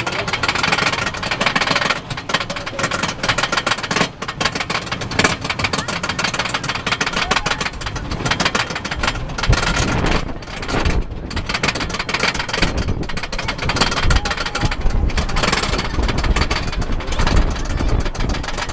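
Wooden roller coaster train being hauled up its lift hill: the lift chain running with a rapid, continuous clacking of the anti-rollback ratchet.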